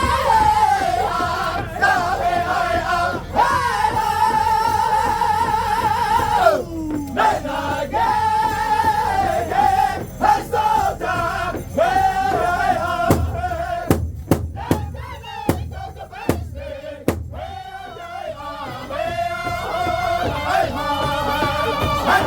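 Powwow drum group singing a contest song: several men's high voices hold long notes and slide downward phrase by phrase over the steady beat of a big drum. A little past halfway the singing thins and a run of hard, separate drum strokes stands out before the voices come back in.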